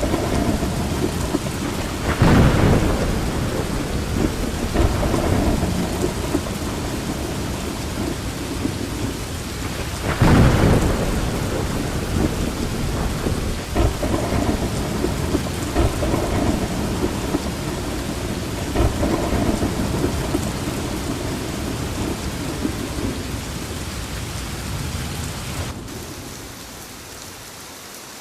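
Rain falling steadily under rolling thunder, with two louder thunderclaps swelling about two and ten seconds in. Near the end the thunder rumble drops away suddenly, leaving a quieter rain hiss.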